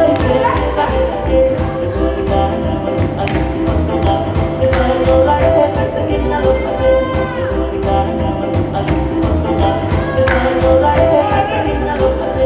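Tongan mako song performed by a men's group: voices singing over music with a strong steady beat and sharp percussive strikes.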